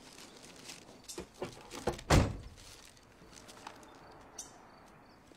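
Car door handled with a few light knocks, then slammed shut with one heavy thunk about two seconds in; a few faint ticks follow.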